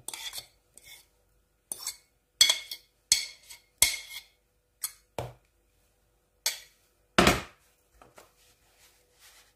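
A metal fork scraping and clinking against a ceramic plate in about ten short, separate strokes as mashed beans are scraped off. A louder, deeper knock about seven seconds in.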